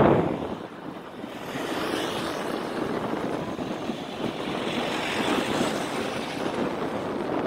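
Wind buffeting the microphone dies away in the first half-second, leaving a steady hiss of moving air and road traffic while cycling along a seafront bike path.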